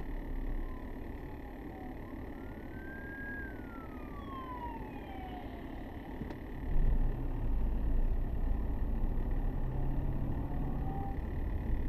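Police car siren wailing, its pitch slowly rising and falling, fading over the first half. About six and a half seconds in comes a sharp knock, followed by a louder low rumble.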